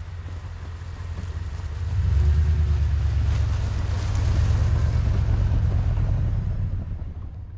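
Toyota Tundra pickup's V8 engine running as the truck drives slowly through snow and past close by, growing louder about two seconds in and easing off near the end.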